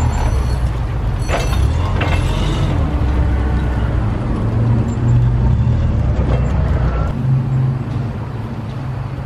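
Propane forklift engine running close by, a steady low rumble that drops away about seven seconds in as the forklift moves off. A few metal clanks sound about a second and a half to two and a half seconds in.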